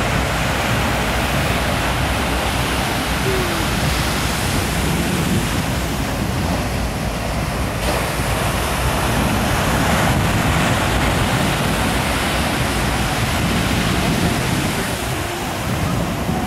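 Ocean surf breaking and washing up on a sandy beach: a steady, unbroken rush of wave noise.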